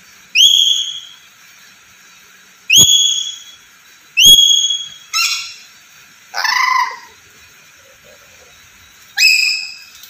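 Black-capped lory calling loudly: three shrill whistles that sweep sharply upward, then two harsher, lower calls, and another rising whistle near the end.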